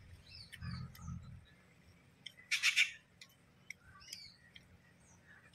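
Close eating sounds of a man eating with his fingers: small wet clicks and smacks, with two soft low thumps about a second in. A short, harsh bird squawk about two and a half seconds in is the loudest sound.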